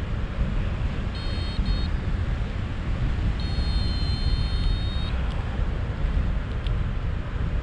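Airflow buffeting the microphone in paraglider flight, a steady rough rush. Over it a flight variometer's electronic beeps sound: two short beeps about a second in, then one long steady tone of nearly two seconds.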